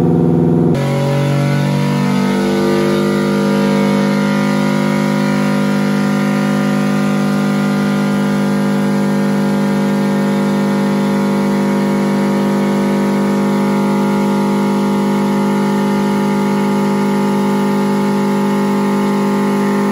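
2002 Subaru WRX's turbocharged 2.0-litre flat-four engine running in gear on a chassis dyno at a steady engine speed. The note drops about a second in, creeps up over the next couple of seconds, then holds even.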